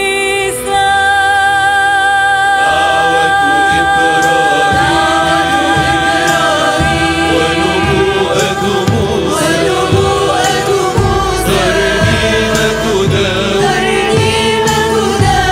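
Arabic devotional song: voices singing an ornamented melody over music, opening on long held notes. A steady low drum beat comes in about two-thirds of the way through.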